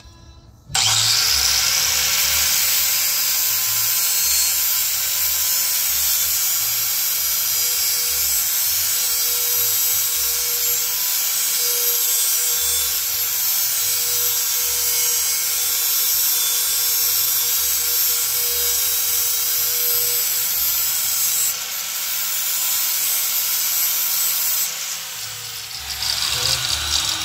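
Handheld angle grinder starting up about a second in and grinding metal steadily on a car's bumper bracket, easing off once near the end and then spinning down.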